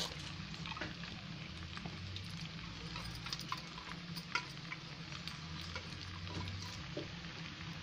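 Pasta sizzling in a steel frying pan on the heat: a steady frying hiss with a low hum beneath and scattered light clicks and scrapes of utensils.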